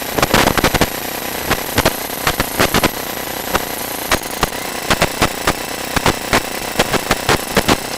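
Sewer inspection camera rig working a cast-iron drain line: irregular sharp clicks and knocks, a few a second, over a steady hiss.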